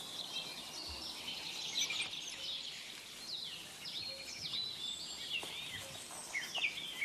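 Forest ambience: small birds chirping and giving short, quick falling calls over a soft steady hiss, the calls coming more thickly in the second half.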